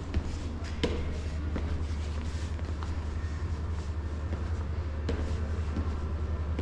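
A steady low hum with a few scattered clicks and knocks.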